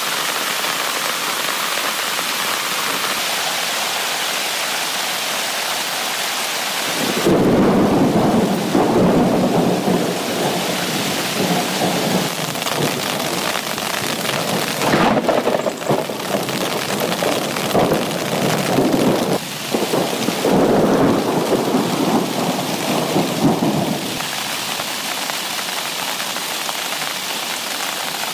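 Heavy rain drumming steadily on a tent. About seven seconds in, a long, loud rumble of thunder sets in and goes on for some seventeen seconds before the steady rain alone returns.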